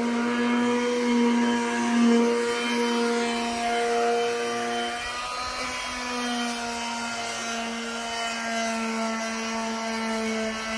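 A steady machine hum at a fixed pitch, with small swells in level.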